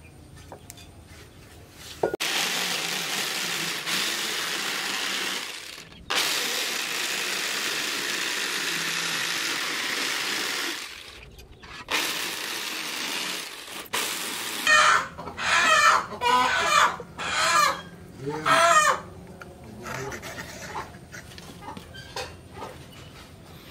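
Electric jigsaw cutting a wooden board, in three runs of steady saw noise that each stop sharply. After the cuts, chickens cluck and squawk loudly for several seconds.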